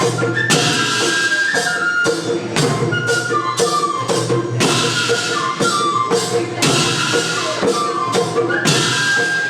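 School orchestra playing an Assamese folk tune: a high wind melody over steady drum beats, about two a second, with jingling percussion and cymbals.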